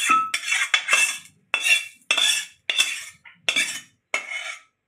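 Metal scraping on a stainless steel pan as fried okra is scraped out onto a steel plate: a run of short, sharp metal-on-metal scrapes, about two a second, stopping shortly before the end.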